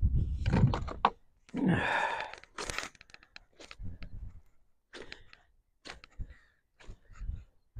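Rustling, crackling and short clicks and taps as a landing net holding a fish is handled, with a brief sigh about two seconds in.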